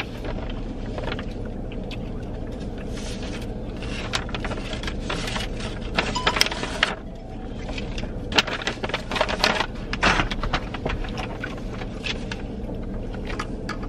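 Brown paper takeout bag rustling and crinkling in spells as it is handled and searched, over a steady low hum inside the vehicle.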